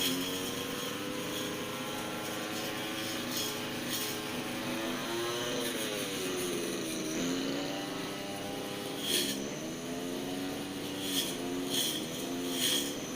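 Petrol brush cutter engine running at working throttle, its pitch sagging about midway and picking up again as it takes load cutting the hedge. Scattered sharp ticks come from the cutting head striking stems.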